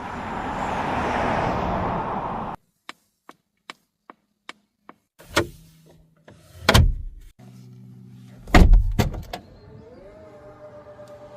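Polestar 2 electric car making a series of sounds: a rushing noise that cuts off suddenly, about seven evenly spaced clicks, three heavy thuds, then a low steady hum with a tone that rises near the end.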